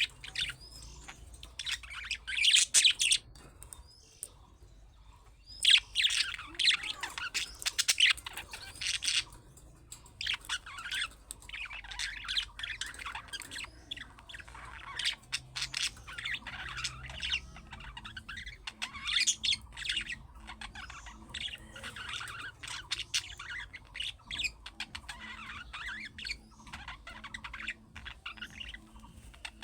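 Budgerigar chirping and warbling: a fast, continuous run of short high chirps, trills and occasional squawks, with two louder bursts in the first third and a brief lull between them.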